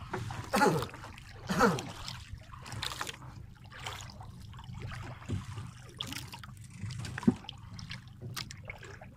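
Water splashing and lapping against the side of a small boat, over a steady low hum. Two short sounds slide down in pitch about half a second and a second and a half in.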